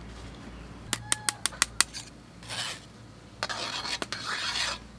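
A quick run of six or seven metal taps and clinks against a cooking pot, some with a short ring, then scraping and rubbing as a utensil stirs the soup in the pot.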